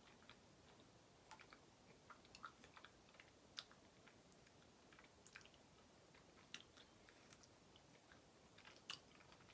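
Faint chewing of soft cheesecake with strawberries and whipped cream: irregular small wet mouth clicks, a few of them slightly louder.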